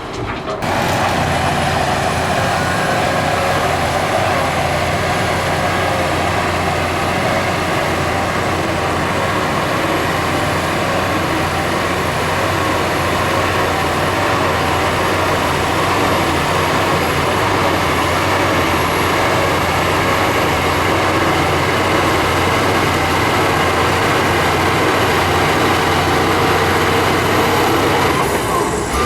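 Shantui DH17 bulldozer's diesel engine running steadily under load, with a thin high whine over the low engine note.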